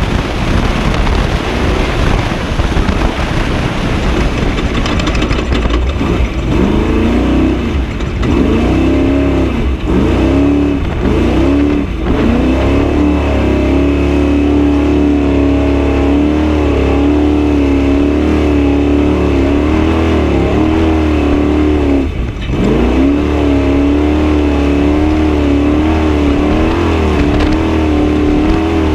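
Class 1450 desert race truck's engine running hard at speed, its revs rising and falling repeatedly, then holding high and steady, with one brief drop and recovery near the three-quarter mark.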